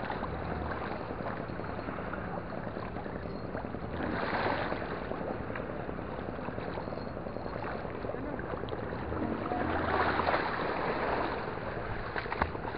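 Shallow water sloshing and swishing as someone wades through it, swelling louder twice.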